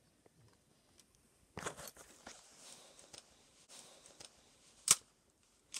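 Faint rustling and handling noises from hunters keeping still, with a sharp single click about five seconds in.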